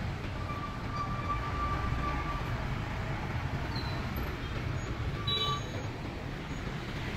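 Cordless electric hair clipper running steadily as it trims hair, over a low, steady rumble of outdoor traffic.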